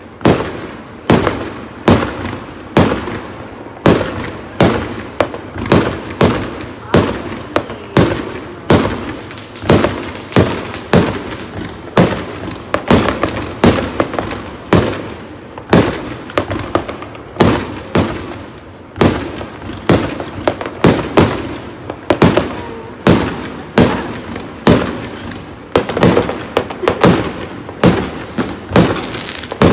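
Fireworks exploding in a continuous barrage of sharp bangs, about one to two a second, each with a short echoing tail.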